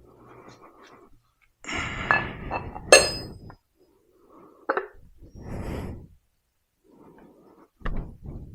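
Metal parts and tools handled during a motorcycle front-wheel install: scattered knocks and clinks, the sharpest a ringing metallic clink about three seconds in, with rustling handling noise between.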